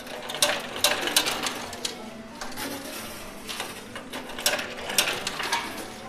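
Coin pusher arcade machine running, its pusher shelf sliding under a steady mechanical hum while coins clink and clatter against one another in an irregular string of sharp metallic clicks. The loudest clicks come about half a second and a second in, and again around four and a half and five seconds in.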